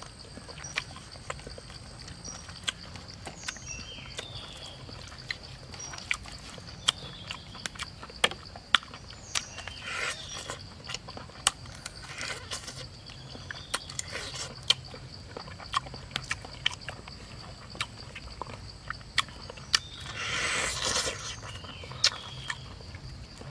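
Close-up eating sounds of grilled chicken being torn apart by hand and chewed: frequent sharp wet clicks and smacks, with short rasps of tearing and a longer, louder one about twenty seconds in.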